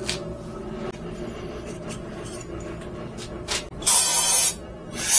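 Compressed-air blow gun fired in two short blasts of hiss, about four seconds in and again at the very end, blowing grinding debris out of a freshly polished pipe elbow.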